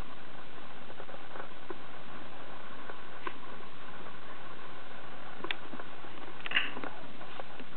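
American bully puppy shuffling on a blanket, small scratches and rustles over a steady hiss, with one short high squeak about six and a half seconds in.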